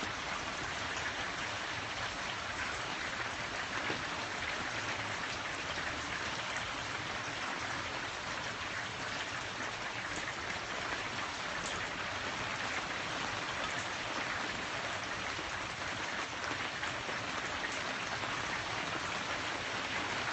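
Steady rain coming down, not very hard but consistent: an even hiss with a few faint drop ticks.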